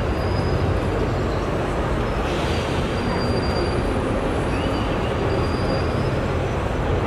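Steady city traffic noise from the road beside the square, with faint thin squeals high above it.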